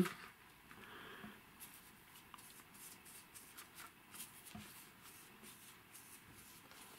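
Faint handling noise: soft rustling and small scattered clicks as a hand moves a plastic OO-gauge model railway coach.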